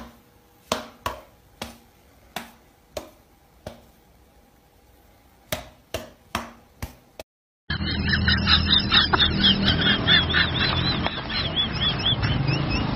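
About a dozen sharp knocks or taps, spaced unevenly over several seconds. After a short gap comes a louder, noisier stretch of rapid, repeated high-pitched chirping calls over a low hum.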